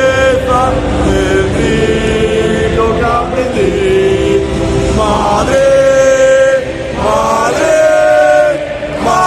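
Large football stadium crowd singing in unison, with long held notes and brief breaks between phrases. Fans next to the microphone are singing loudly.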